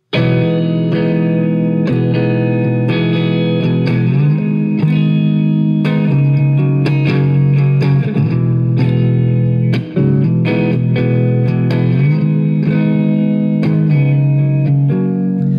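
Amplified semi-hollow electric guitar playing the song's instrumental intro: strummed chords ringing on, with a momentary gap about ten seconds in.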